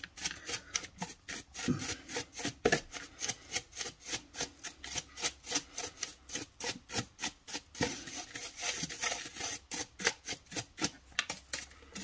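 Dry paintbrush bristles scrubbing dust out of the open rear motor end of a Dyson cordless stick vacuum, in quick back-and-forth strokes, several a second.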